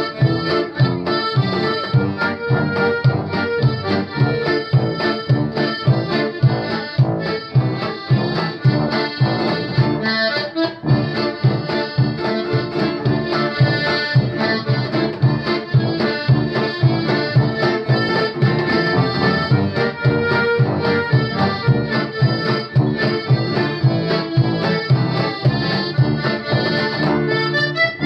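Piano accordion playing a lively tune, with acoustic guitar accompaniment keeping a steady beat.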